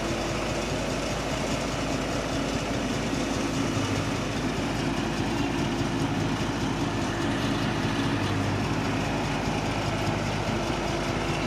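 Komatsu PC71 excavator's diesel engine running steadily.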